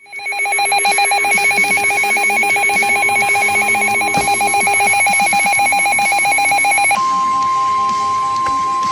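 Warbling electronic alert tone trilling rapidly for about seven seconds, then switching to a steady single-pitch tone: the NOAA Weather Radio warning alarm tone that comes before a severe thunderstorm warning.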